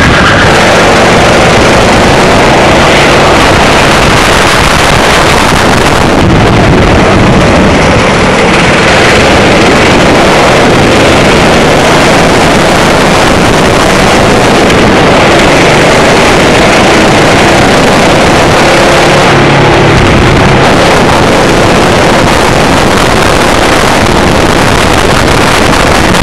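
Racing kart engine running hard under load, its revs rising and falling as the kart brakes and accelerates through corners. Heard close from an onboard camera, loud, with wind buffeting the microphone.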